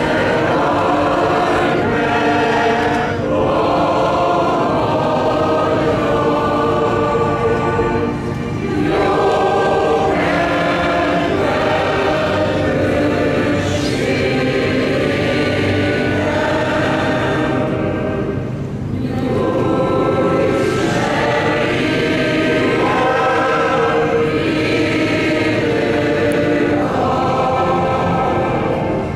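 Many voices singing a hymn together in long held phrases, with brief breaks between phrases about 3, 8 and 18 seconds in.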